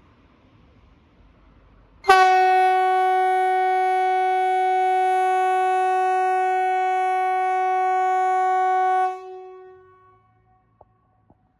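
MKT 75/370 pneumatic civil defence siren giving one steady blast of about seven seconds at a fixed pitch. It starts abruptly and cuts off sharply, leaving a brief fading tail. This is one blast of Sweden's "Important message to the public" (VMA) warning signal, sounded here as the quarterly test.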